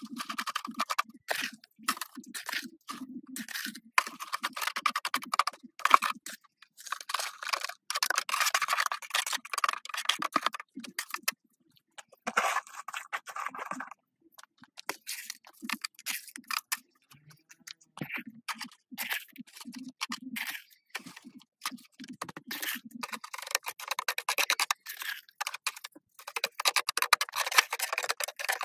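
Small steel trowel scraping and tapping wet cement mortar in a sheet-metal tin: a rapid, irregular string of short scrapes and clicks with brief pauses.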